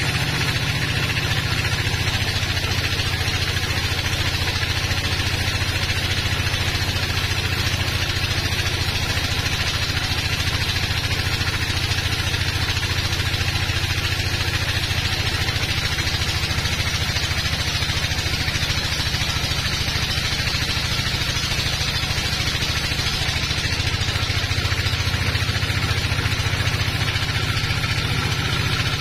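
Sawmill bandsaw running steadily as its blade rips lengthwise through a teak log: a constant low machine drone with a dense, even rushing noise from the cut.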